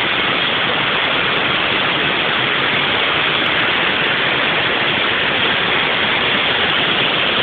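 Waterfall: water falling and splashing in a steady, loud rush with no let-up.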